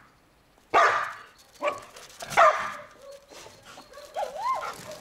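Belgian Malinois barking sharply three times, then a short wavering whine near the end.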